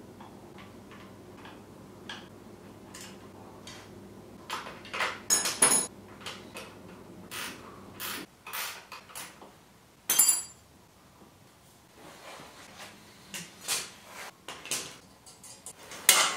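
Hand tools and motorcycle exhaust parts clinking and knocking against metal while an exhaust is being fitted under the bike. The irregular clanks come in scattered clusters, with the loudest about five seconds in, about ten seconds in and near the end.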